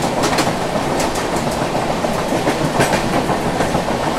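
Mandovi Express passenger train running along the track: a steady rush of wheels on rail with irregular clacks over rail joints, heard from the open doorway, while a second train passes close alongside on the next track.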